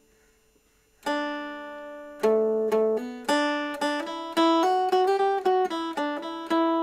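Mountain dulcimer played solo: after about a second of quiet, a strummed chord rings out, then a quick melody of plucked notes over a steady drone.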